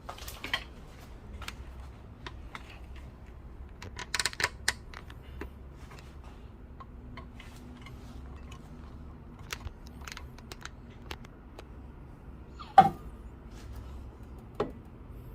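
Scattered light clicks and taps over a faint low hum, with a small cluster of sharper clicks about four seconds in and one louder knock near the end.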